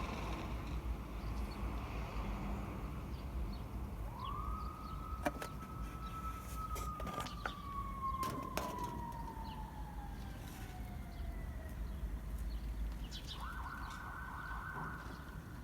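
A siren: one tone rises quickly about four seconds in, holds briefly, then slowly falls away over several seconds, over a steady low rumble. A few sharp clicks sound while it holds.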